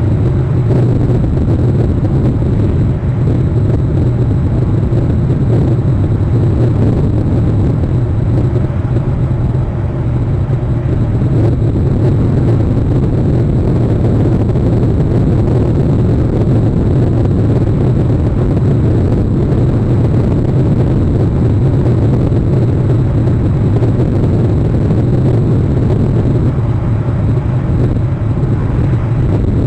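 Steady, loud low rumble of wind buffeting an outdoor camera microphone, with no change or distinct events.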